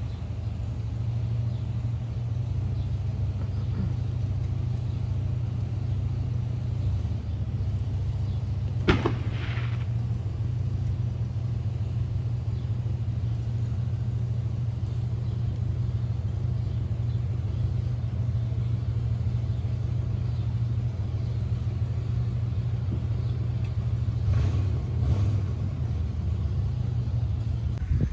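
A steady low rumble, with one sharp knock about nine seconds in and a few softer knocks near the end.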